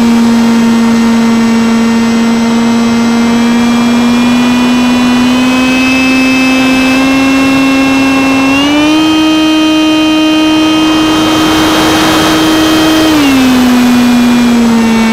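Electric motor and propeller of a Horizon Hobby Stryker RC flying wing in flight, heard from a camera on the airframe: a steady whine that rises in pitch as the motor speeds up about eight seconds in, holds, then falls back near the end. Wind rushes over the microphone while the motor is at its higher speed.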